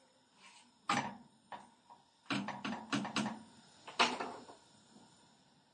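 Knocks and clatters of a knife and a small frying pan being handled on a gas stove. There is a sharp knock about a second in, a quick run of knocks around three seconds, and a louder knock at four seconds that rings briefly.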